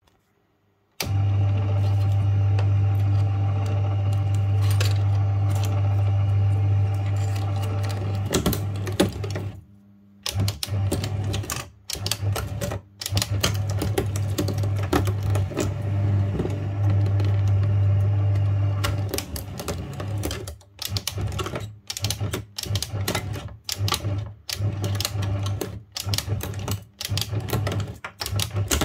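Paper shredder motor running steadily with crackling and clicking as its cutters chew thin metal strips and ribbon cable from an old DVD player. From about ten seconds in the motor stops and restarts over and over in short bursts, as its rocker switch is worked.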